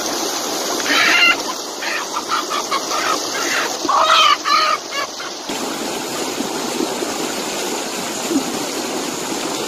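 A hen clucking and squawking in a run of short calls over the steady rush of a rocky mountain stream. About five seconds in, the calls stop and only the rushing water remains.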